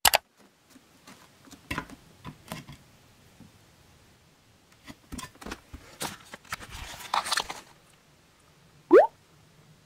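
Bare feet on a wooden floor and a glass digital bathroom scale: a click, then scattered light taps and knocks. A short rising squeak near the end is the loudest sound.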